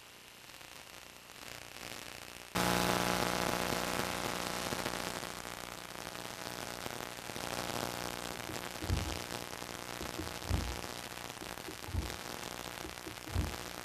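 Radio video-link static hiss at first, then the audio suddenly cuts in to a model airplane's engine running steadily at idle, with a few short low thumps in the second half.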